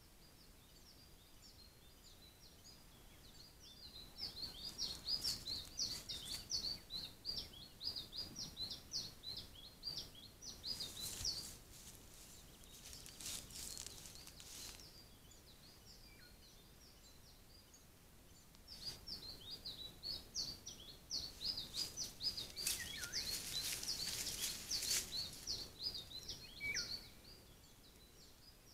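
A small songbird singing long runs of rapid, high chirps in two long spells, with brief rustling close to the microphone as a roe deer moves through the tall grass.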